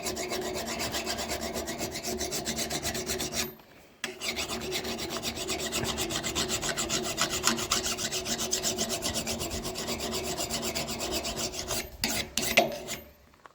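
Angle grinder dressing the cutting edge of a splitting axe: steady, rapidly pulsing metal-on-abrasive grinding. It stops briefly about three and a half seconds in, then resumes and ends near the end with a few sharp knocks.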